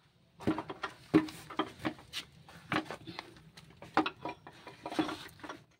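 Hand tools clinking and knocking against metal engine parts from underneath a vehicle: about a dozen sharp taps and clinks at uneven intervals.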